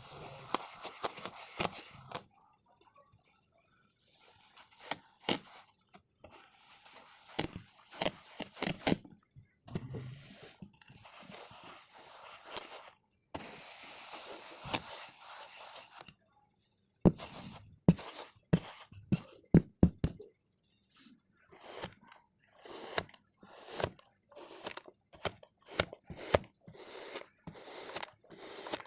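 Kinetic sand being cut with a comb: crisp crunching and scraping with many small sharp crackles, in stretches of a few seconds broken by short silent gaps.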